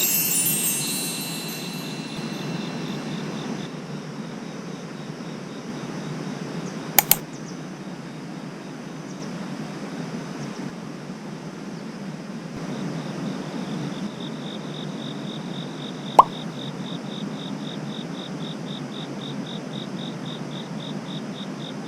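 A falling run of chime tones right at the start, then crickets chirping in a steady pulse, about four chirps a second, over a steady low noise. Two sharp clicks, about 7 and 16 seconds in.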